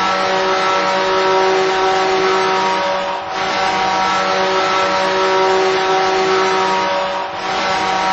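Hockey goal horn blowing in long, steady blasts, a chord of several held tones over a noisy rush, with brief breaks about three and seven seconds in.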